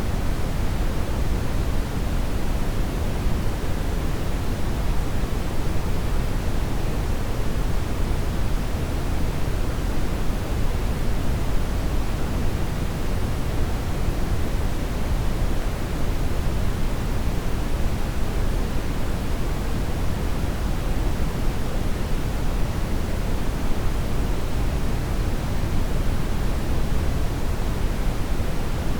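Steady brown noise: an even, deep rushing hiss, strongest in the bass and thinning toward the treble, unchanging throughout.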